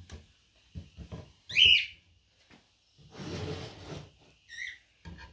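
Wooden hive-box frames handled on a folding table: soft knocks, and a longer scraping, shuffling noise about three seconds in. A loud, short whistled note comes about one and a half seconds in, the loudest sound here, and a shorter one follows near the end.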